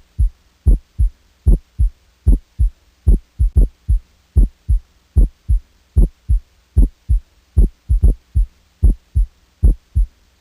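Steady paired thumps in a lub-dub rhythm like a heartbeat, about 75 pairs a minute.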